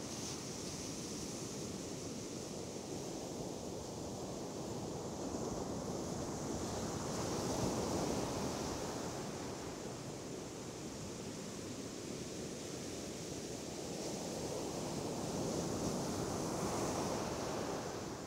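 Ocean surf breaking and washing up the sand. It is a steady rush that swells louder about eight seconds in and again near the end.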